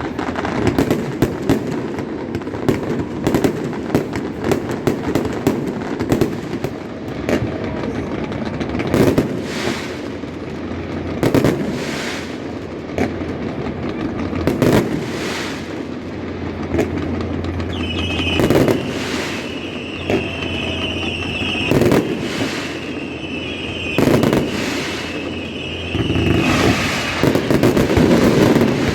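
Fireworks display going off. Rapid crackling and popping comes first, then a run of loud booms a few seconds apart, each with a rolling echo. A high wavering whistle runs through the second half.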